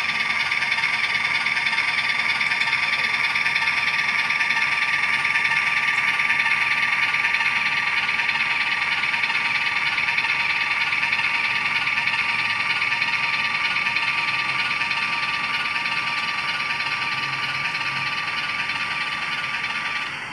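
HO-scale model diesel locomotive's MRC sound decoder playing its engine sound through the model's small speaker while the locomotive runs slowly in reverse. The owner says this sound set sounds like an Alco engine rather than a genset. A steady high whine runs with it and stops near the end.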